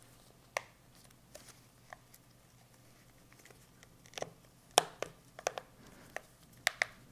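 Snap clips of a Garmin nüvi 3790 GPS's plastic back cover clicking into place as the cover is pressed closed around its edge: a few faint, scattered clicks, then quicker, louder ones in the second half, the sign that the cover is seating.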